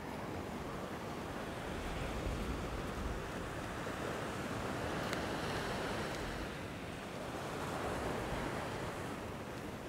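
Surf breaking and washing up a sand beach, an even hiss that swells and eases every few seconds, with wind rumbling on the microphone.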